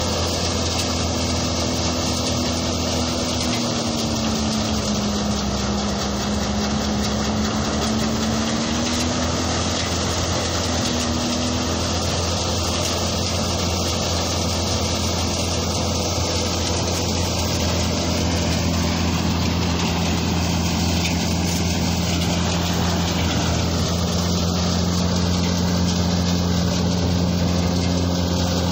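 Tractor-powered peanut thresher running steadily: a constant low engine hum with the thresher's drum and blower over it. The running pitch sags for a few seconds about four seconds in, then recovers.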